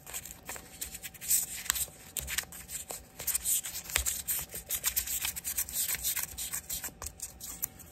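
Hand scrubbing on a Schrade LB-5 folding knife's brass bolster and handle to clean off dirt: a steady run of short scratchy strokes, several a second.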